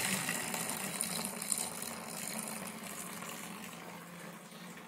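Liquid pouring and splashing into a plastic bottling bucket: cooled priming-sugar solution tipped from a saucepan, with a thin stream of beer running down into it from the fermenter. The splashing fades gradually.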